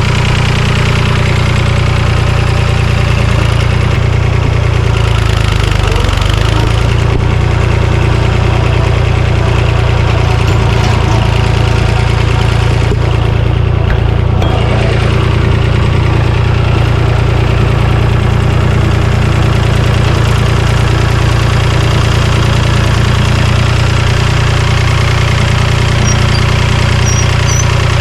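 Tractor engine running steadily and loudly, close by.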